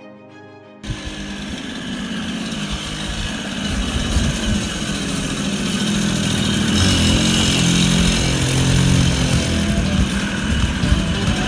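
Background music breaks off abruptly about a second in, and a 1975 Batavus Go Go moped's small two-stroke engine takes over, running as the moped is ridden, growing louder as it comes closer.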